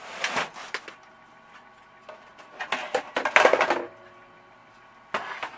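Metal toy steam engines and their parts being moved and set down on a wooden workbench: clinks, knocks and scraping in short clusters, busiest about halfway through, with a last knock near the end.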